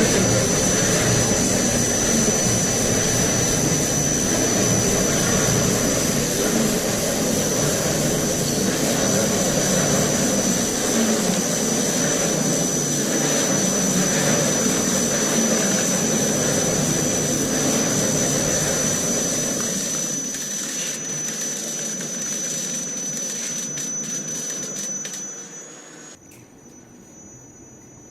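Pallet stretch-wrapping machine running, a steady mechanical noise with a thin high whine; it eases off after about twenty seconds and stops abruptly near the end.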